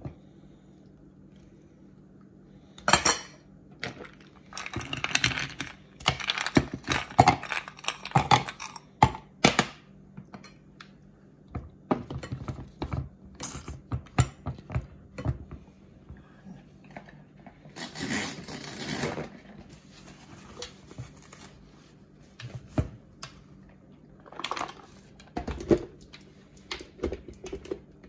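Ice cubes dropped into a NutriBullet's plastic blender cup: a run of clinks and knocks a few seconds in. Later, scattered knocks and a scraping stretch as the cup is closed with its blade lid and handled on the counter.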